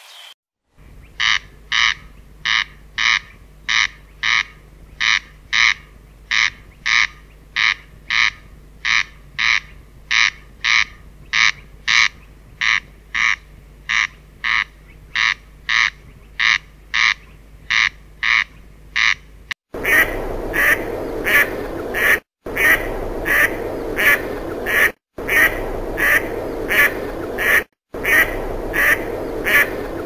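An animal's short calls repeated evenly, about two a second. About two-thirds of the way through it changes to a noisier recording of similar repeated calls, broken by brief silent gaps every few seconds.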